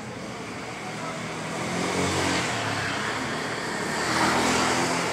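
A motor vehicle's engine running close by, growing steadily louder as it approaches.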